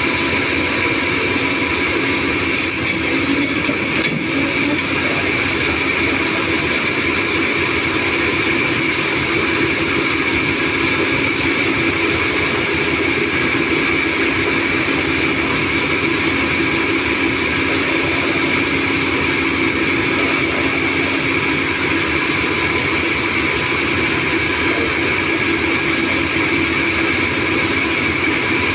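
Doosan 225 excavator's diesel engine running steadily, with a steady high tone over the engine sound and a few faint clicks a few seconds in.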